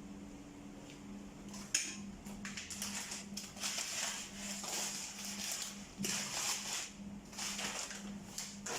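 Plastic bag rustling and crinkling in repeated bursts as it is handled, over a steady low hum. A sharp click comes a little under two seconds in.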